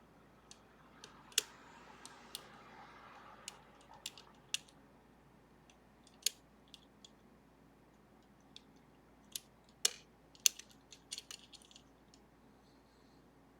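Lock-picking tools working the levers of a Sargent & Greenleaf 4440 series safety deposit box lever lock: small, sharp, irregular metal clicks, with a faint scraping early on and a quick cluster of clicks about ten to twelve seconds in.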